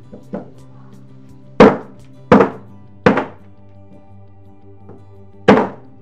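Batoning: a wooden log strikes the spine of a Victorinox Swisschamp knife whose blade is set into a piece of very hard, seasoned wood. There is one light knock, then three sharp wooden knocks in quick succession and a fourth near the end, with the blade barely going into the hard wood. Background music plays underneath.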